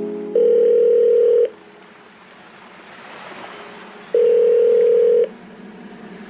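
Two long steady electronic beeps, about a second each and some three seconds apart, with a faint rushing whoosh swelling in the gap between them.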